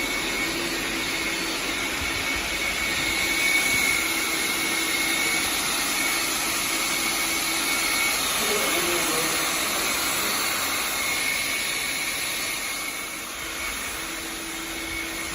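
Neabot NoMo Q11 robot vacuum cleaner running, a steady fan whir with a constant high whine, easing off slightly near the end.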